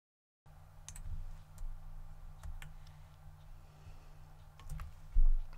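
A few sharp clicks from a computer mouse and keyboard over a low steady hum, with a dull thump near the end.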